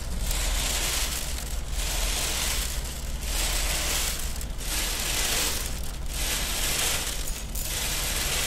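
Dense rattling and crackling from a sound-art installation's moving parts, swelling and dipping about every one and a half seconds over a steady low hum.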